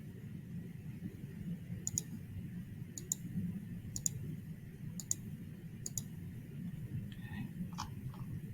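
Computer mouse button clicking, about once a second, five clicks in a row, with a few fainter clicks near the end, over a low steady hum.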